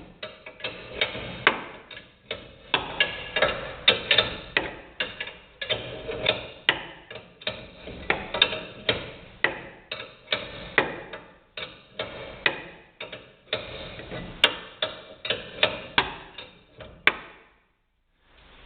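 Hand ratchet wrench clicking in short, repeated strokes while working the front suspension, about two to four sharp metallic clicks a second with brief pauses. The clicking stops about a second before the end.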